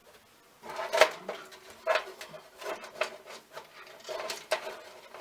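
Irregular clicks and light knocks of hardware being handled inside a computer case, each with a faint metallic ring.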